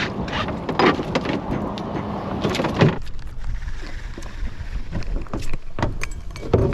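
Wind rumbling on the microphone, with scattered knocks and clatter of handling on a small fishing boat while two hooked fish are netted. The rumble eases about three seconds in.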